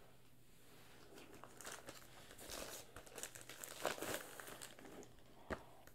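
Clear plastic outer wrap of a vinyl LP crinkling in irregular crackles as it is handled and pulled open along its perforated edge. There is a single soft knock near the end.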